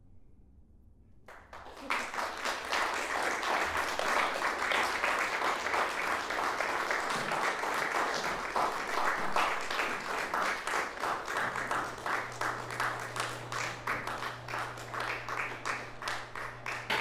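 Audience applause that breaks out about a second in after a brief hush, then goes on steadily; toward the end it thins into more separate claps. A low steady hum joins about halfway through.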